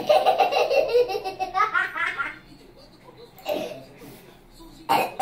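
A young girl and an older woman laughing together: a loud run of rapid laughing for the first two seconds or so, then a few quieter laughs and a short sharp burst near the end.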